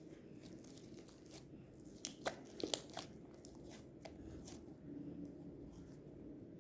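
Fluffy slime being handled, stretched and squeezed: faint crackling with a cluster of sharp clicks and pops about two to three seconds in.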